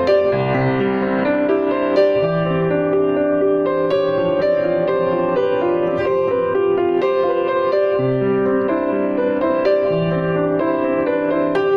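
Background piano music: a slow melody over held bass notes that change about every two seconds.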